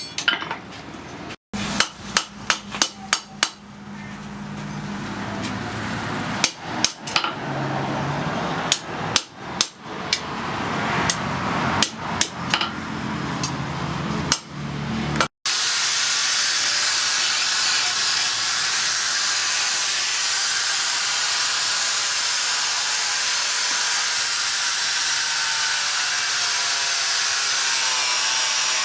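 Hammer blows on metal, forging blacksmith's tongs, in quick runs of about four strikes a second. About halfway through, this gives way to a power tool running steadily with a hissing whine.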